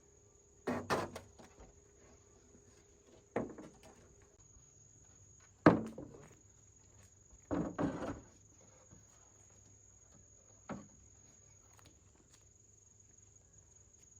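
A handful of sharp, irregular knocks and thumps, the loudest about halfway through and a double one a little later, over a steady high insect drone.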